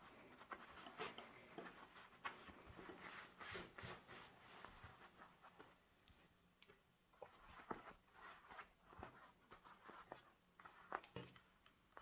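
Faint, irregular rustling and light clicks from fabric and small sewing tools being handled.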